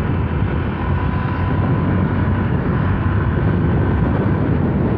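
Wind rushing over the microphone while riding, with a Honda Vario scooter's single-overhead-cam engine running steadily underneath. The sound is meant to show the engine noise typical of an SOHC engine, though the wind masks much of it.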